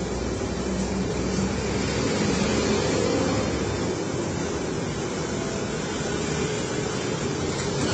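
Steady street traffic noise: vehicle engines running and passing, with road hum.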